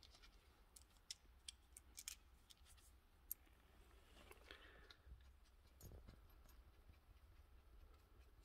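Near silence with faint scattered clicks and ticks of small metal parts being handled: a copper washer and a threaded coolant fitting being fitted and started by hand into a turbocharger's center housing, with a soft rub and a dull thump past the middle.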